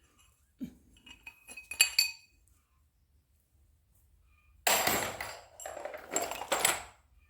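Metal motorcycle engine parts clinking and rattling as the camshaft is worked out of a Honda CB350 Four cylinder head: a few sharp metallic clinks in the first two seconds, then a longer rattling scrape later on.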